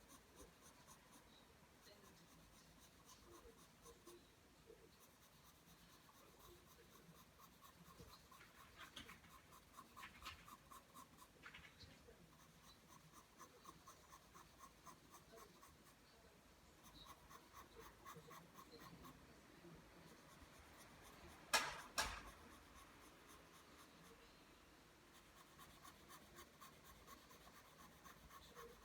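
Pencil drawing lines on paper: rapid repeated strokes, faint and scratchy, a little stronger for a stretch in the first half. About three quarters of the way through, two sharp knocks stand out as the loudest sounds.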